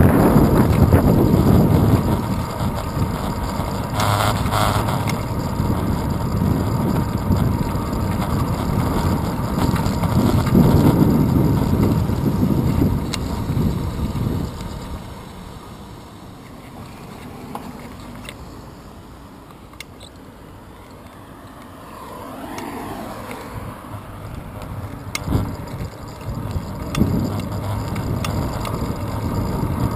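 Wind buffeting a handlebar-mounted action camera on a moving bicycle, with rumble from the road. It goes quieter for several seconds midway as the bike slows at a stop-sign intersection, then builds again, with a few sharp knocks near the end.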